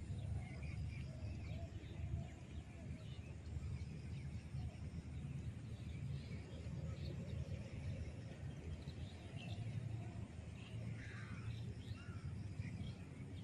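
Outdoor ambience: a steady low rumble with scattered bird chirps over it, a short flurry of calls near the end.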